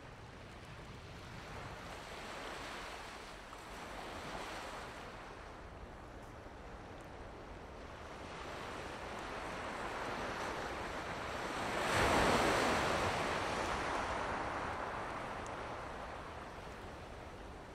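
Ocean waves washing onto a shore, swelling and fading several times. The largest wave breaks about twelve seconds in and slowly dies away.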